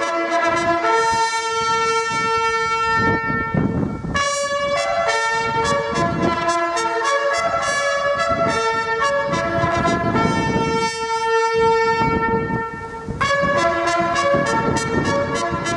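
Brass instruments playing a slow melody in harmony, several notes sounding together and changing about once a second.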